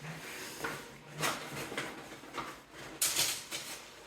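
Handling noises: a few short rustling swishes as gear is moved about, the longest about three seconds in.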